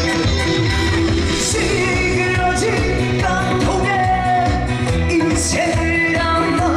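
Trot song performed live: a singer's voice over a band backing track with a steady beat.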